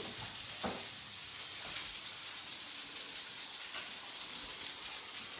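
Steady, quiet sizzling of food cooking, with one light click about half a second in.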